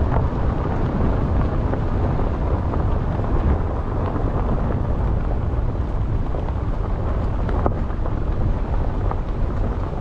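Wind buffeting the microphone as it travels, a steady low rumble with a vehicle's running and road noise beneath it.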